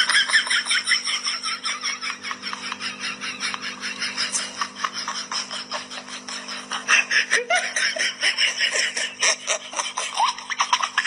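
A person laughing continuously in a long run of quick, breathy bursts, over a steady low hum.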